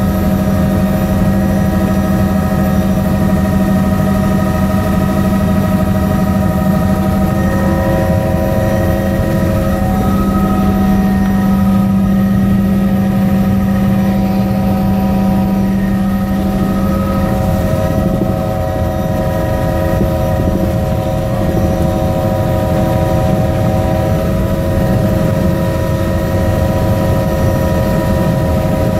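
Helicopter cabin noise in flight: a steady drone with a strong low hum that fades out a little past halfway, over a constant higher whine.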